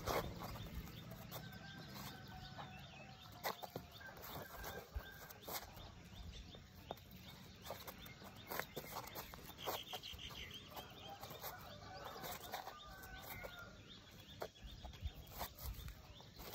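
Shoes tapping and scuffing on a concrete rooftop in irregular light steps during shadowboxing footwork, with birds calling now and then in the background.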